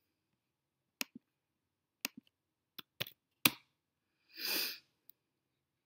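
A scattering of sharp computer clicks from mouse, trackpad or keys, about eight in two and a half seconds, the loudest near the middle. Then a short breathy hiss, like a sniff, and one last faint click.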